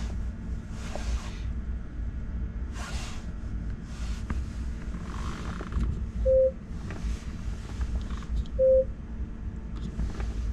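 Two short electronic beeps, the same pitch each time and about two and a half seconds apart, from the Tesla Roadster's dashboard touchscreen head unit as its on-screen buttons are tapped. Under them is a steady low hum with soft intermittent whooshes.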